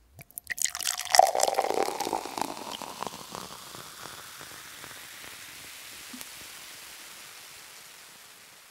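Logo sting sound effect: a rush of crackling clicks with a brief tone about a second in, settling into a steady hiss that slowly fades out.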